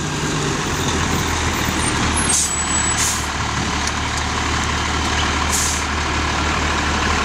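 Fire engine's diesel engine running steadily as the truck pulls up close, with short hisses of its air brakes about two and a half and three seconds in, and again about five and a half seconds in.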